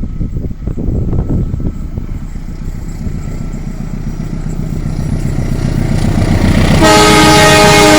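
An approaching train rumbling and clattering, growing louder. About seven seconds in, a loud horn of several tones sounding together starts and is held.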